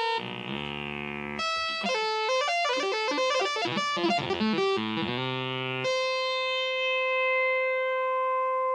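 Synthesizer notes triggered by a cat's body and paws pressing the pads of a grid MIDI controller: a quick, irregular run of plucked-sounding tones stepping up and down, then a single note held steady from about six seconds in.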